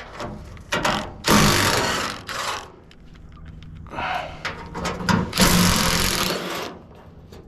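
Impact wrench hammering in two bursts of about a second and a half each, with a shorter burst between them, on a fastener that is stuck.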